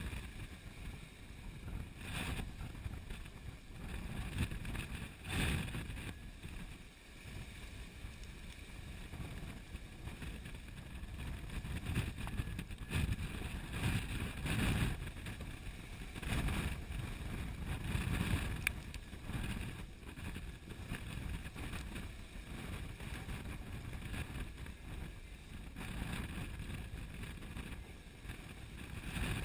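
Strong wind across the microphone and sea water rushing and splashing along a Sun Odyssey 349 sailing yacht's hull in 35 to 45 knot wind and steep waves, swelling and easing every few seconds.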